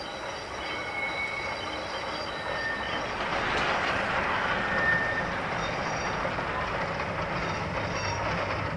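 Heljan Class 45 OO gauge model locomotive creeping slowly round a very tight curve, a steady running noise with intermittent thin high squeals: its wheel flanges grinding against the rails because the curve is too tight for its long wheelbase.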